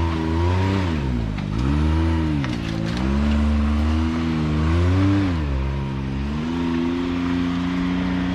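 Side-by-side UTV engine revving up and down several times as it works its way up a climb, then holding a steady speed about six seconds in.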